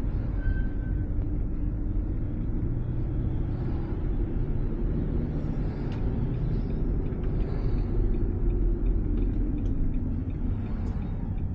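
Steady low rumble of road and engine noise heard inside a moving car's cabin at expressway speed.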